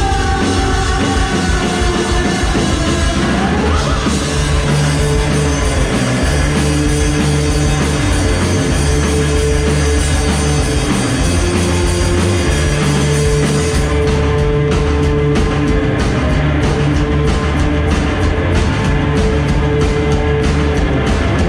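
Loud rock music from a band with guitars and drums, played without a break.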